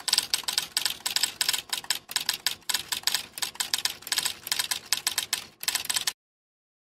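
Typewriter keys clacking in a rapid, uneven run of keystrokes as text types itself out, stopping suddenly about six seconds in.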